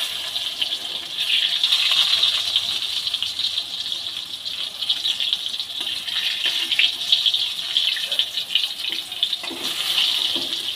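Brinjal halves sizzling steadily as they fry in hot mustard oil in a kadai, with a few scrapes of a metal spatula against the pan as the pieces are turned.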